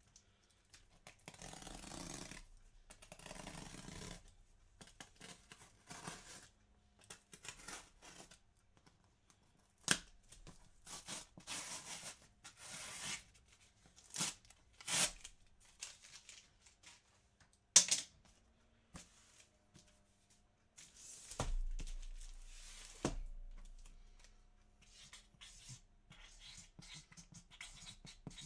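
Cardboard box and packaging being torn open by hand: repeated ripping and rasping of tape and cardboard, broken by sharp clicks and knocks, with one longer tear of about a second and a half a little past two-thirds of the way through.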